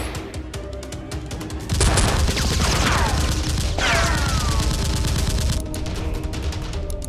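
Rapid automatic gunfire sound effects over background music. The firing gets louder and heavier about two seconds in, with falling whistles mixed in twice.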